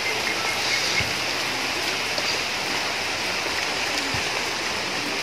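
Steady rain falling, an even hiss, with a couple of soft thumps about a second in and again near the end.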